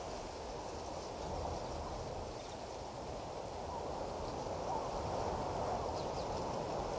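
Outdoor bush ambience: a steady low rushing noise with a few faint, short, high chirps.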